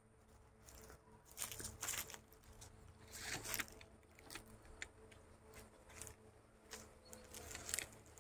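Faint, irregular crackling and rustling, with scattered clicks at uneven intervals.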